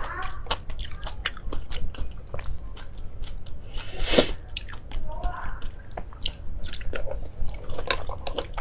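A person chewing and biting food with the mouth: a steady run of short wet clicks and crunches, with one louder bite about four seconds in.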